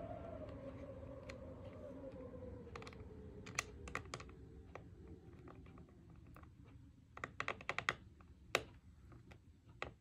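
Faint, scattered small clicks and taps as a laptop's hard-drive retaining bracket and its screws are handled and lifted from inside the aluminium case. The clicks come thicker about seven to nine seconds in.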